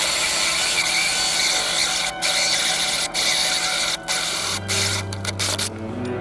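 A power tool running with a dense, steady noise, broken by several short cut-offs. A low steady hum comes in about four and a half seconds in.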